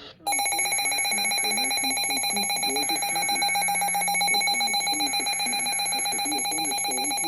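Electronic emergency alert tone: a steady, shrill tone of several pitches that starts abruptly just after the start and cuts off abruptly near the end, signalling that an emergency alert broadcast is about to begin.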